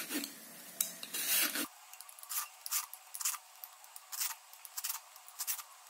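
Y-shaped vegetable peeler shaving thin ribbons off a zucchini: a run of short scraping strokes, a few each second.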